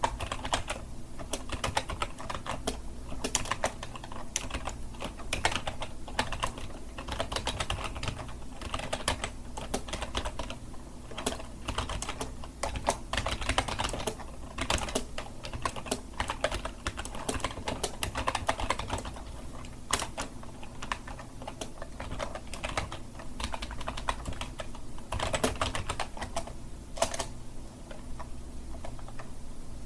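Continuous typing on a computer keyboard: a steady, uneven stream of key clicks, with a few pauses.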